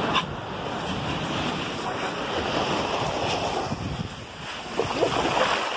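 Surf washing onto a sandy beach, a steady rushing wash, with wind buffeting the microphone.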